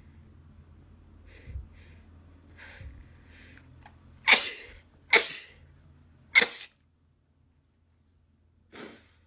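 A person sneezing: three loud sneezes in quick succession about a second apart, then a weaker fourth sneeze near the end.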